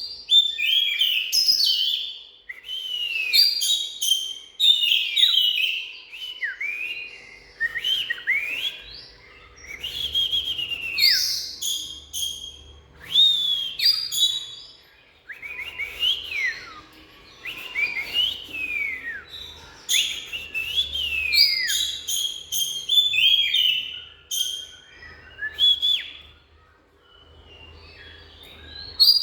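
Oriental magpie-robin singing: a continuous run of loud, varied whistled phrases, many notes sliding down in pitch, mixed with short sharp high chips.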